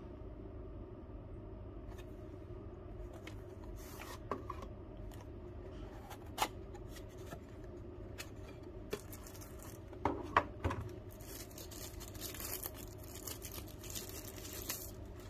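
Cardboard packaging handled and opened, with scattered sharp clicks and knocks of the box and its lid, the loudest cluster about ten seconds in. For the last few seconds, tissue paper crinkles and rustles as it is unwrapped.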